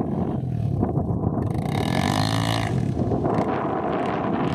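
Honda Tornado dirt bike's single-cylinder four-stroke engine running, with a brief rev that rises and falls about halfway through.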